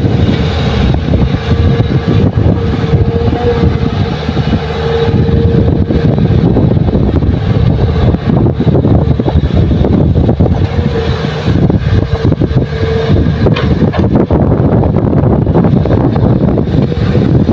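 Excavator's diesel engine working loud and steady, with a high steady whine that comes in twice for a few seconds each time.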